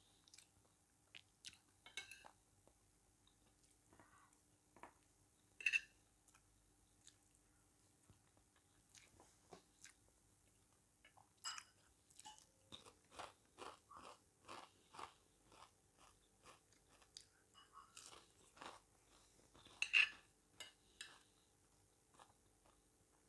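Fish crackers being bitten and chewed close to the microphone, with a run of steady crunches about three a second midway and a couple of louder sharp clicks.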